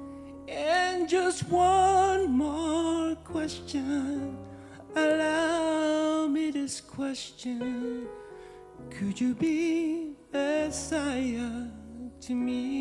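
A solo singer performing a slow worship song, with vibrato on long held notes and short pauses between phrases, over soft instrumental accompaniment with sustained low notes.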